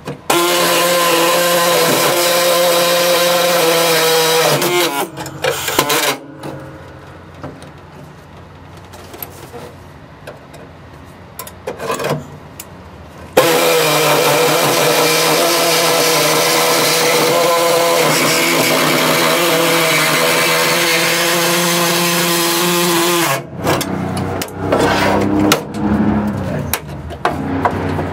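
Pneumatic body saw running and cutting sheet steel, a steady hum with air hiss, in two runs: one of about four seconds and, after a pause of several seconds, a longer one of about ten seconds. The thin metal near the middle of the cut flexes and vibrates against the blade.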